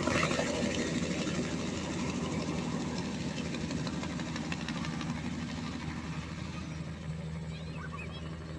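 Helicopter flying away, its rotor and turbine engine drone growing steadily fainter.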